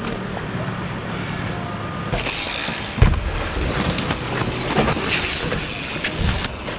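BMX bike tyres rolling and hissing over skatepark ramps, with scattered ticks. There is a sharp thump about three seconds in and smaller knocks later, typical of the bike landing and the wheels striking ramp edges.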